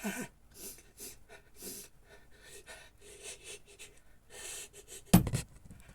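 A person's breathy gasps and sniffing inhalations while trying to sneeze, with a sudden, much louder burst of breath a little after five seconds in; the sneeze doesn't come.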